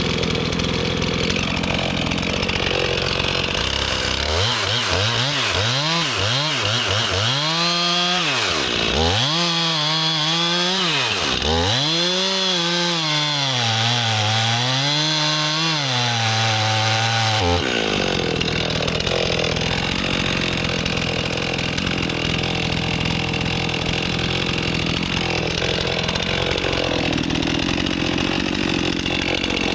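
Two-stroke chainsaw running at high revs while cutting into a large tree trunk for felling. Through the middle of the stretch its pitch repeatedly sags and recovers as the chain loads up in the cut.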